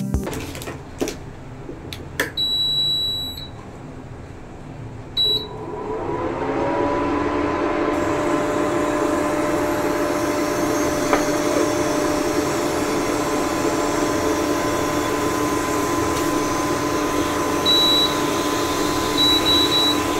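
Prestige PIC 2.0 V2 induction cooktop powering up. There is one long control-panel beep and one short one, then its cooling fan spins up with a briefly rising hum and runs steadily with an airy hiss. Several short beeps come near the end as buttons are pressed. This is a cooker that runs but does not heat.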